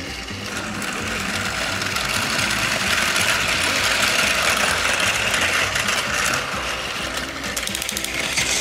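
Battery-powered Plarail toy train motor and plastic gears whirring steadily, growing louder in the middle and easing off later.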